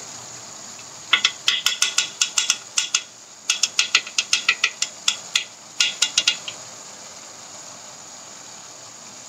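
Two runs of quick, irregular sharp clicks and ticks from handling a plastic sugar container and its lid, each lasting a few seconds, then only a faint steady hiss.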